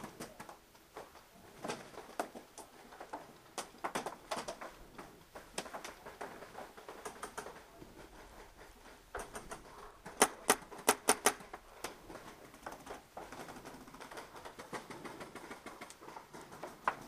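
Paintball fire: scattered sharp pops of markers shooting and balls striking, with a quick burst of about six loud cracks a little past halfway.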